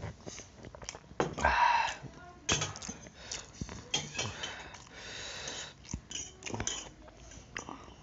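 Eating at a table: a fork clinking and scraping on steel plates and a drinking glass set down on the table, with short clicks throughout. A loud breathy burst about a second and a half in.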